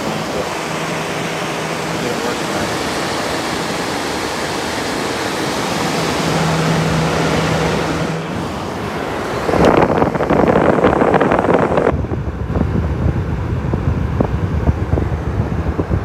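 1960s Westinghouse Custom Mobilaire 5000 window air conditioner running: a steady rush of fan air with a low hum that comes and goes. A louder rush of air lasts for a couple of seconds near the middle, then low rumbling and small knocks of wind and handling on the microphone.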